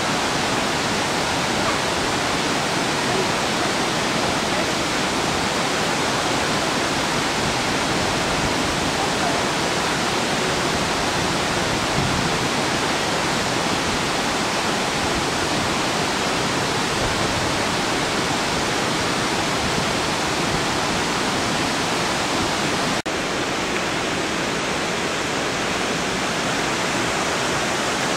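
Steady rushing of Webster's Falls and the tumbling creek water below it, with a momentary dropout near the end.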